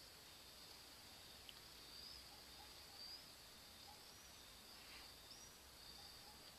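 Near silence: faint room tone with a steady high hiss, broken by a few tiny faint chirps.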